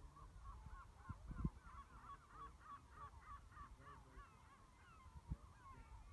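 A flock of birds calling, faint: a busy, overlapping chorus of short hooked calls. Under it is a low rumble of wind on the microphone, with a thump about a second and a half in and another near the end.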